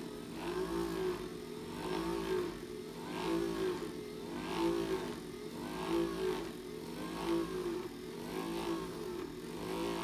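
Handheld electric percussion massager running, its motor hum rising and falling in pitch about once every second and a quarter as it is worked over a cat's back.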